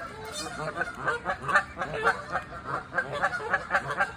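Geese honking at each other in a rapid run of short honks, about three to four a second.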